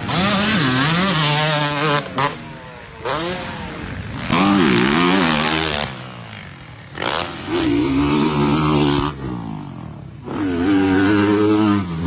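Two-stroke motocross dirt bikes revving hard: several bursts of full throttle, each with the pitch rising and then falling away as the throttle is shut, with quieter lulls between them.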